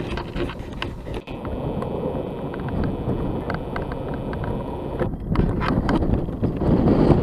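Strong, gusty wind buffeting the microphone: a steady low rumble with many small crackling hits.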